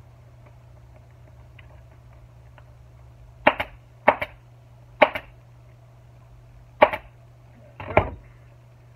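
Pneumatic upholstery staple gun firing five times, a sharp snap each time as it drives staples through the vinyl seat cover into the seat base. The shots are irregularly spaced, the first three about half a second to a second apart.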